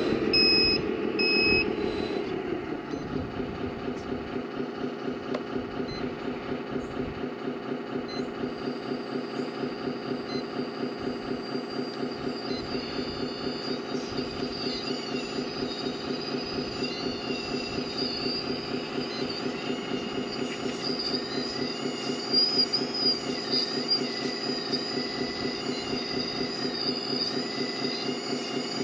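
Kabolite K970 RC hydraulic excavator running: a steady whine from its hydraulic pump with a fast, even pulsing, its higher tones wavering in pitch in the second half as the arm and bucket work. A few reversing beeps sound in the first second or two.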